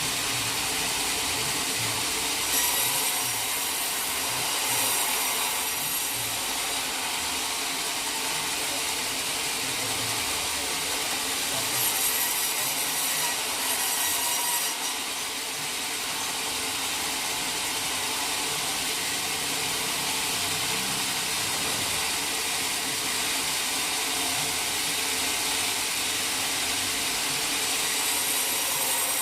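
Sawmill saw cutting steadily through a teak log: a continuous rasping cut with brighter, sharper stretches a few seconds in and again around the middle.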